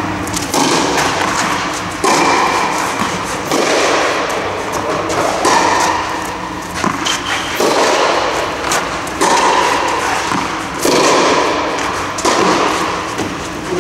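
Tennis rally on a clay court: the ball struck back and forth with rackets, a sharp pop from each hit about every one and a half to two seconds, echoing in a large domed hall.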